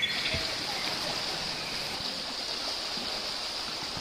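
Steady rush of water in a hill stream, an even hiss with no breaks.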